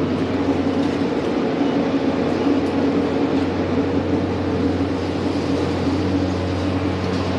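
Steady mechanical hum from a machine running close by, a low drone with several steady tones above it that holds unchanged.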